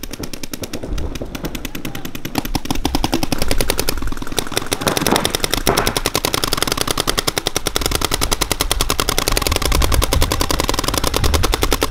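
Paintball markers firing in rapid, continuous streams of shots, the pops coming many times a second without a break.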